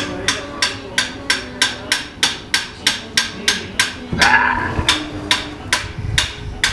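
Hammer blows in a steady rhythm, about three a second, driving a new suspension bushing into place. A longer, rougher clash comes a little after four seconds in.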